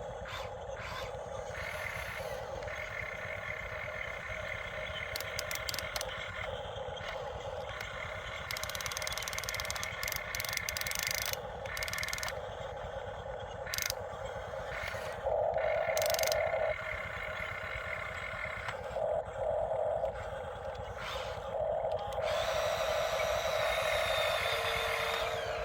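Excavator's engine running steadily with a low rumble, while a steady whine comes and goes every few seconds as the machine works.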